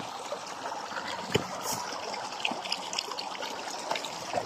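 Small stream trickling and splashing over rocks. A single sharp click comes about a third of the way in.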